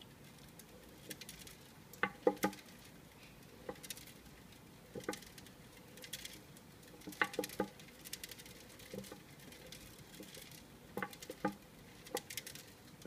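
Hedgehog walking slowly in a plastic exercise wheel: clusters of two or three light clicks and taps every couple of seconds as its feet and the turning wheel knock, with faint rustling in between.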